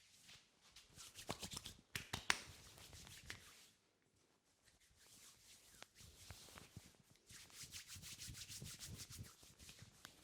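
Head massage by hand: quick rubbing and light patting strokes on skin and hair, with one sharp snap about two seconds in, a short lull near four seconds, then a steady rapid patter.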